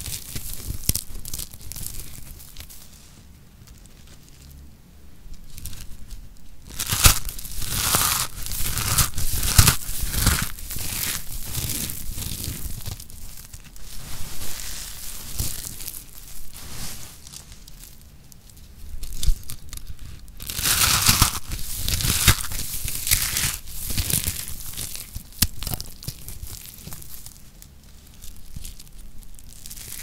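Dry shaved soap curls crunching and crackling as they are squeezed, rubbed and crumbled between the fingers, in irregular bursts with quieter lulls in between.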